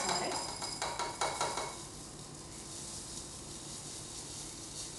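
Coco Pops chocolate puffed rice cereal poured from a stainless steel jug into a ceramic bowl: first a rattle of pieces clicking onto the bowl, then, about two seconds in, a steadier hiss as the stream lands on the growing heap.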